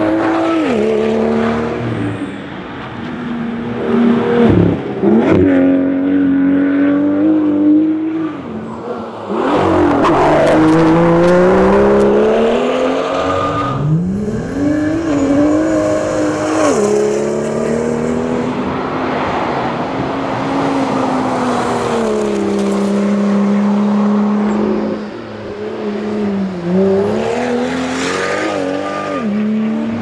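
BMW M2's turbocharged straight-six engine under hard acceleration through the gears. The engine note climbs and drops back several times with the shifts.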